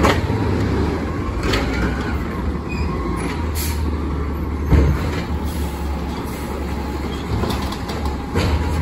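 Natural-gas garbage truck engines running with a steady low rumble as the trucks move slowly along the street, with a few short knocks, the loudest about five seconds in.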